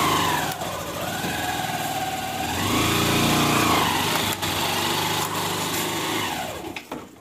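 Motorcycle engine running and revving, its pitch rising about a second in and again around three seconds, then dropping back. The sound fades near the end.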